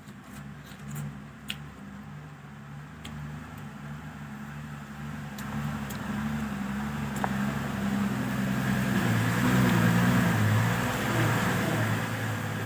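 A motor engine with a low, wavering hum that grows steadily louder, loudest near the end, like a vehicle drawing near. A few faint clicks in the first seconds.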